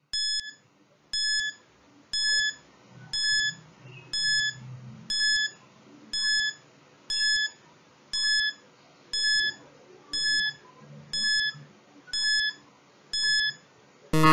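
Electronic countdown timer beeping once a second, a short steady beep each time, and then a louder, fuller buzzer sounding right at the end as the count runs out.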